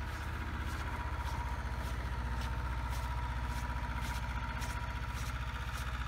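An engine idling steadily with an even, rapid low pulse.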